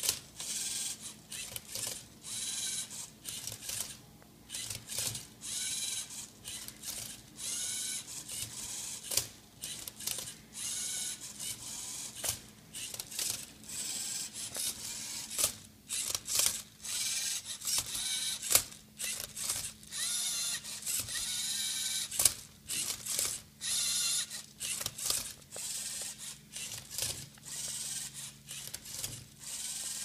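LEGO Mindstorms Rubik's Cube robot at work: its motors whir in short bursts about once a second, with sharp clicks and clacks as it turns the cube. The sound starts abruptly and keeps going in quick stop-start moves.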